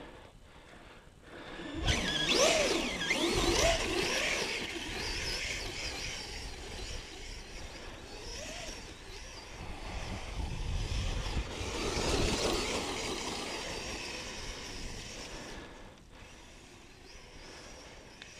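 Small electric motors whining, rising and falling in pitch over a rushing noise. It starts about two seconds in, swells twice, and dies away near the end.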